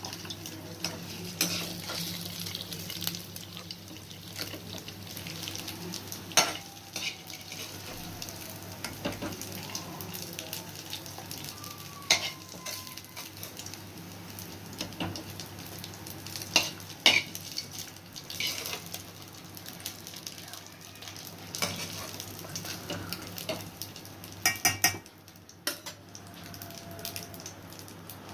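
Oil sizzling as soya chaap pieces shallow-fry in a steel pan, with sharp clinks and scrapes of a slotted steel spoon against the metal as the fried pieces are scooped out into a steel bowl.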